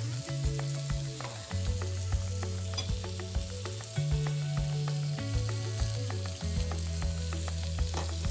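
Food sizzling as it fries in a pan, with background music underneath: held bass notes that change every second or so, over a steady beat.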